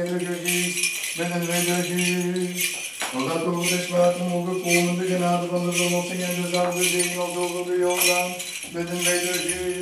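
Bells on an Orthodox censer jingling as it is swung, over a man's liturgical chant held on steady notes and broken by short pauses for breath.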